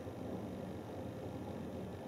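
Hoover Dynamic Next front-loading washing machine in the last rinse of its wool cycle, drum at rest in the water: a low, steady hum with no knocks or changes.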